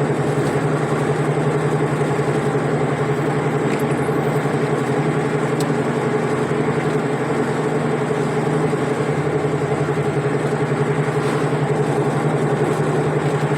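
A vehicle's engine and road noise heard from inside the cabin while driving: a steady drone with no change in speed.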